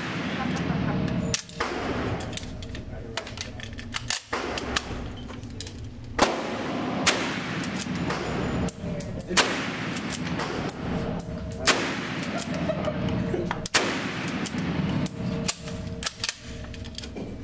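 Gunshots from rifles firing on a shooting range: about eight sharp reports at irregular intervals, one to a few seconds apart, each with a short echoing tail.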